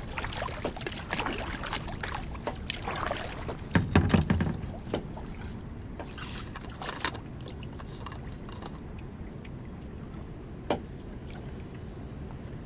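Kayak paddle strokes splashing and dripping in the water, with a low, loud thump about four seconds in. After that the paddling stops, leaving a quieter steady wash of water and one sharp click near the end.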